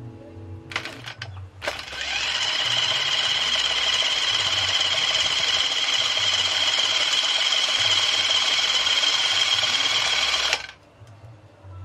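775 brushed DC motor running at a steady speed, spinning the driveshaft through homemade universal joints: a steady high whine that starts about two seconds in after a few short clicks and cuts off suddenly near the end.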